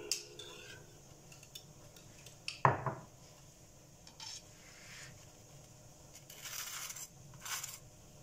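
Cutlery and a plate clinking and knocking, with one loud knock about two and a half seconds in. Near the end comes a knife scraping ketchup across a toasted burger bun.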